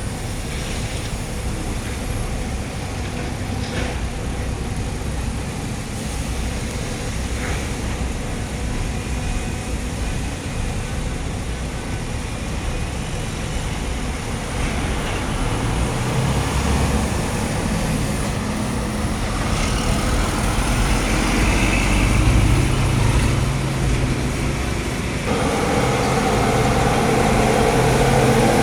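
Hino dump truck's diesel engine running, growing louder and more strained over the second half with a further rise in loudness near the end.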